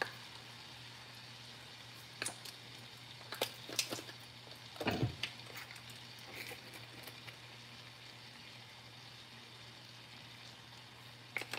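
Beef cubes frying faintly in a pan, with a few light clicks and taps from seasoning shakers handled over it.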